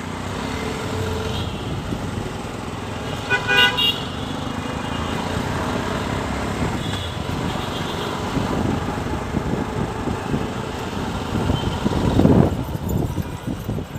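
Street traffic running steadily, with a vehicle horn honking once briefly about three and a half seconds in and fainter toots later on. A vehicle passes close near the end, the loudest swell of the traffic noise.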